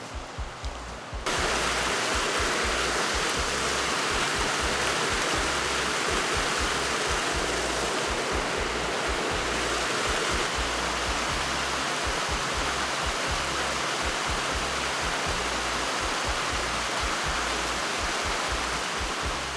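Water of a small waterfall cascading down rocks: a steady rushing that comes in suddenly about a second in.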